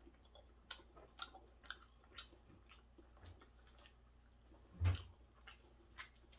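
A person chewing raw hairtail sashimi close to the microphone: small wet mouth clicks about two a second, with one louder knock about five seconds in as the next bite is taken.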